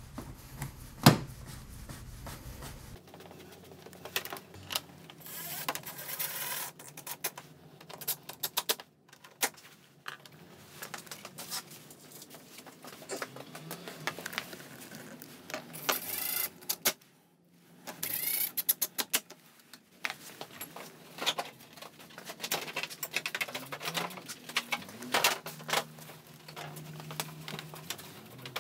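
Plastic body panels of a Honda PCX 125 scooter being handled and pressed into place: irregular clicks and taps with a few short scraping rubs of plastic on plastic.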